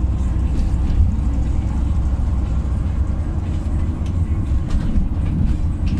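LiAZ 5292.67 city bus under way, heard from inside the passenger cabin: a steady low rumble of its YaMZ-53624 compressed-natural-gas engine and road noise, with a few faint rattles.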